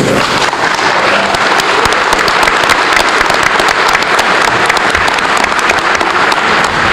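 Large audience applauding, a dense and steady clapping without pause.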